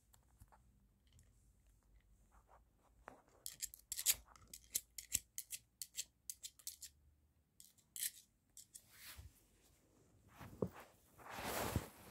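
Pomeranian nosing and mouthing a hard plastic toy: a quick run of sharp clicks and crunches, then a louder rustling swish near the end.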